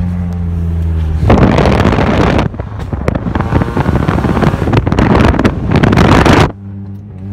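1989 Acura Integra's four-cylinder engine running through a temporary straight pipe while driving, a steady low drone. About a second in, heavy wind noise on the microphone covers it for about five seconds, then cuts off suddenly and the engine drone is heard again.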